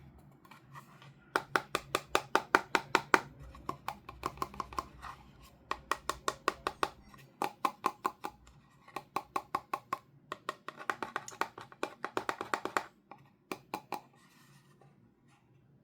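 Rapid runs of sharp clicking taps, about six a second, in bursts of one to two seconds with short pauses between them.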